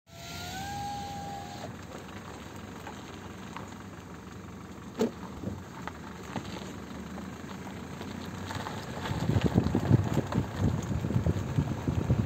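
Car running with a steady low rumble, heard from inside, with a short rising whine for about the first second and a half. From about nine seconds in, gusts of wind buffet the microphone.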